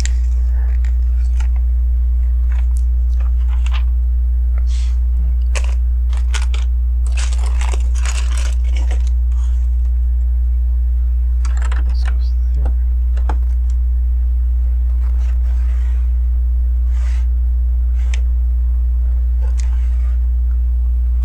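Plastic LEGO bricks clicking and rattling as they are picked out, handled and pressed together, in scattered short clicks with a denser spell of crackling about a third of the way in, over a steady low electrical hum.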